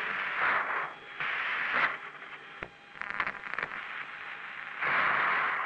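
Bursts of radio hiss on the spacecraft-to-recovery voice radio link, switching on and off as the channel is keyed open with no one talking, with a few crackles in the middle and a longer burst of static near the end.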